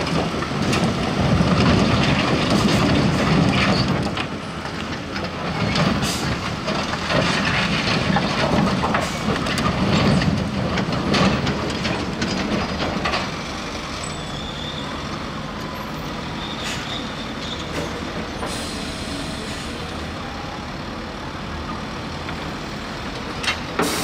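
Volvo articulated dump truck tipping a load of blasted rock: the engine runs under load as the hydraulics raise the body, and rocks rumble and clatter out of it for about the first thirteen seconds. After that the clatter stops and the engine settles to a steadier, quieter running sound with the body raised.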